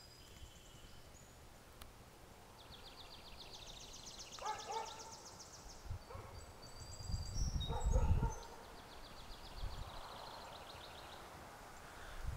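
Several songbirds singing: fast high trills and short whistled notes. About seven to eight seconds in there is a low rumble on the microphone.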